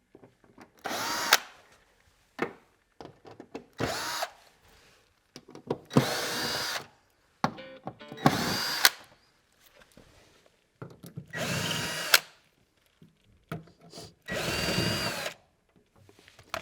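Power drill backing out the six screws that hold a massage chair's rear cover. There are six short whirring runs, each under a second to about a second and a half long, a few seconds apart. The motor's pitch rises as it spins up in each run.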